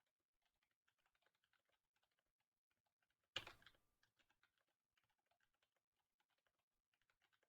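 Faint typing on a computer keyboard, a run of quick key clicks, with one louder knock a little over three seconds in that dies away over about half a second.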